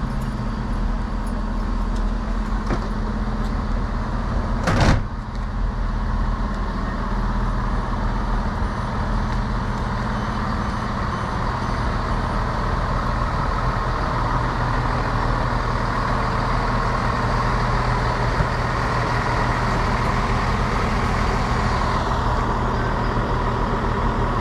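A passenger train's engine running steadily while the train stands at the platform. A single sharp thump about five seconds in is the loudest sound.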